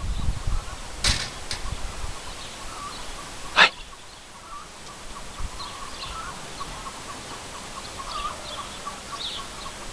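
Outdoor rural ambience: low wind rumble on the microphone at the start, faint bird chirps, and two short sharp sounds about a second and three and a half seconds in, the second one the loudest.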